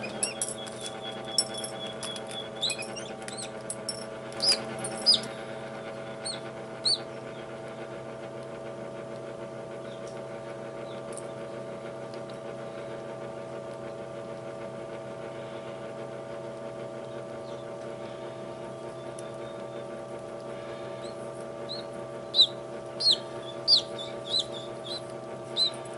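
Newly hatched chicks peeping in short, high chirps, in scattered runs near the start and again near the end, over the steady hum of an egg incubator.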